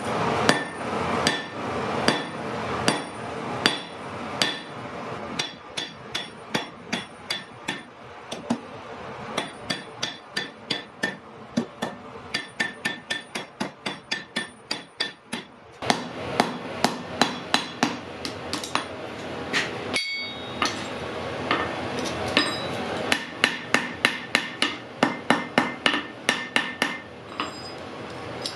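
Hammer blows on iron over an anvil, a long series of sharp strikes with a ringing metallic note, quickening to about three blows a second, with brief breaks partway through, and stopping shortly before the end.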